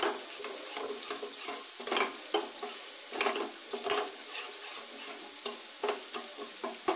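Steel spoon stirring and scraping around a small steel bowl, mixing spice paste with water, with irregular clinks against the metal over a steady high hiss.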